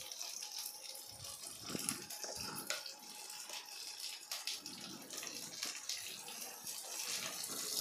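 Chopped onion, capsicum and green chilli sizzling in hot oil in a kadai while they sauté: a soft, steady hiss with occasional small crackles.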